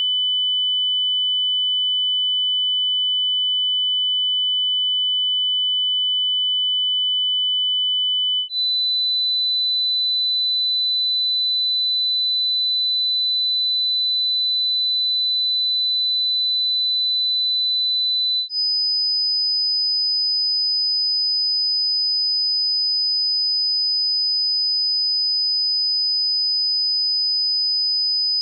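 Pure sine test tones for tinnitus frequency matching, stepping up in pitch: a steady 3000 Hz tone, then after a brief break about eight seconds in a steady 4000 Hz tone, then after another brief break about eighteen seconds in a steady 5000 Hz tone.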